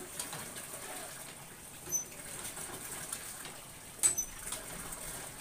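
Pork cubes and liver in soy sauce cooking in a pan with a steady hiss. A metal utensil clinks against the pan about two seconds in, and again about four seconds in.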